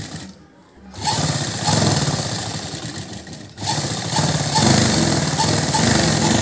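Domestic sewing machine running fast, the needle stitching along a piped neckline. It stops briefly about a third of a second in and again for a moment about three and a half seconds in, then runs on.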